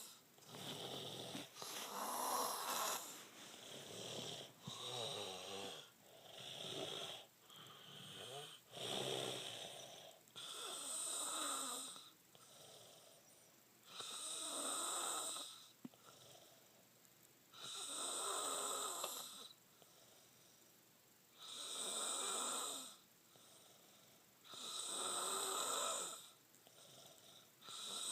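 A person with strep throat snoring in their sleep. The breaths come short and irregular at first, then settle into long snores about every three and a half to four seconds.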